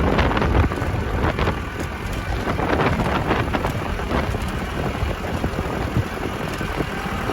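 Strong gusty wind in a sandstorm, buffeting the microphone with a heavy low rumble and crackling noise.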